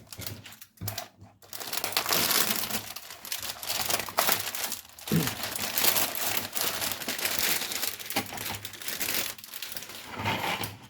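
Plastic packaging crinkling and rustling as it is handled and pulled open, in a near-continuous stream with a few short pauses in the first second or so.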